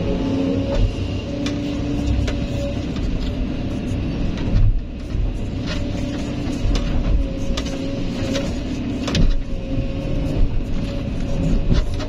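Hydraulic excavator digging limestone: diesel engine running steadily under a held whine, with scattered sharp knocks and clanks.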